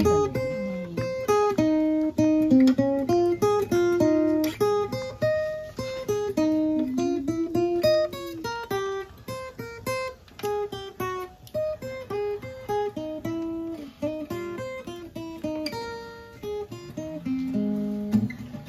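Steel-string acoustic guitar played solo: a melody of single plucked notes, each ringing and fading, opening with a struck chord and with fuller chords near the end.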